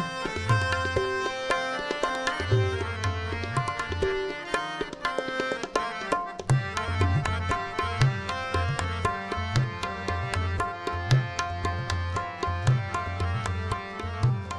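Tabla playing a quick, dense rhythm, with repeated deep bass strokes from the bass drum, over harmoniums holding sustained reed tones of the melody.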